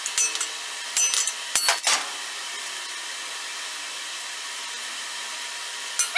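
Light metallic clinks and a short scrape of a steel hand tool working at thin sheet steel in the first two seconds, then only a steady hiss until a few more clinks at the very end.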